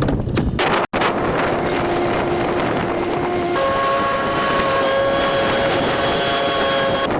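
Wind buffeting the microphone on a fishing boat, with a steady whine that steps up in pitch about halfway through. The sound breaks off about a second in.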